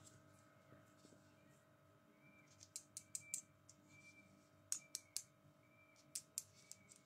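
Light plastic clicks and taps of toy tweezers from a toy doctor set being handled, coming in a few quick clusters of sharp clicks.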